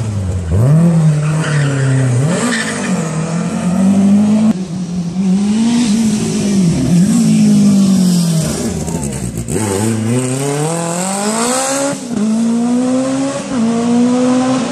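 Rally car engine revving hard, its pitch repeatedly dropping and climbing as the driver lifts and gets back on the throttle. Near the end it pulls up through several gears, and each upshift is a quick drop in pitch followed by a steady rise.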